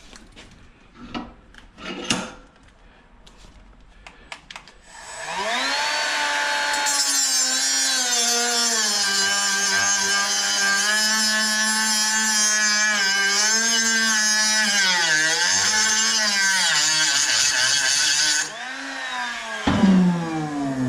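A few light handling knocks, then a handheld electric power tool spins up and cuts into scrap metal with a harsh, gritty noise. Its motor pitch sags under load and recovers. Near the end it switches off and winds down, followed by a sharp knock.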